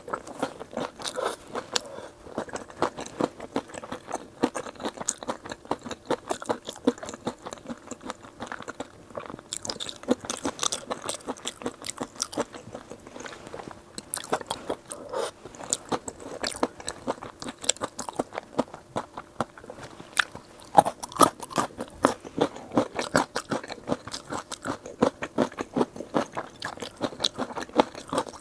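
Close-miked chewing and crunching of spicy chili shrimp with crunchy rice snacks and peanuts: rapid crisp crunches, several a second, with wet chewing between them and a spell of sharper, crispier crunches about ten seconds in.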